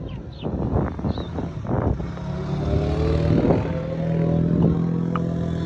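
A motor engine running steadily from about two seconds in, with a short rise in pitch soon after it starts, after a few brief knocks at the start.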